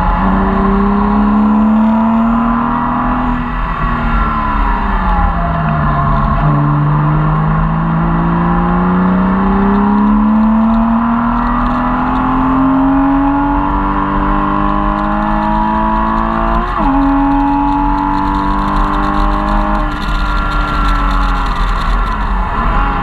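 Porsche Cayman S's mid-mounted flat-six heard from inside the cabin at track pace over road and wind noise. The engine note rises, falls away about four seconds in, then climbs slowly for about ten seconds under a long pull. A quick shift comes near seventeen seconds, and the note drops again near the end.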